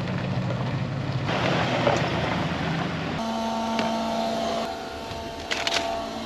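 A vehicle engine running steadily; the sound changes abruptly about three seconds in and takes on a few steady whining tones.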